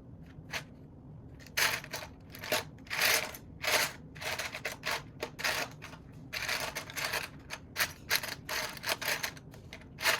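Loose plastic Lego pieces clicking and rattling as they are handled and rummaged through, a rapid, irregular run of short clicks and scrapes.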